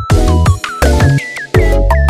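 Electronic background music with a heavy bass line, a punchy beat and short sliding synth notes.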